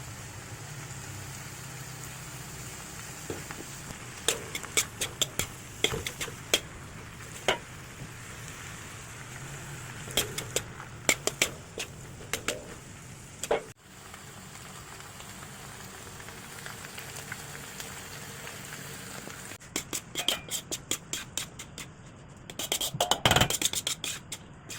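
Chicken frying and sizzling in a pan while being stirred, a metal utensil clinking and scraping against the pan in irregular runs.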